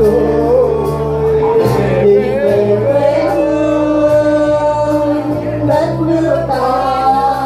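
A mixed group of men and women singing together into handheld microphones, amplified, over sustained electronic keyboard accompaniment.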